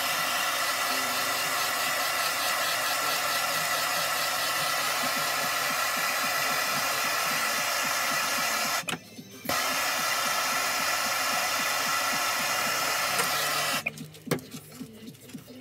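Handheld gas torch burning with a steady hiss. It breaks off for under a second about nine seconds in, comes back, and stops near the end, followed by a few faint handling clicks.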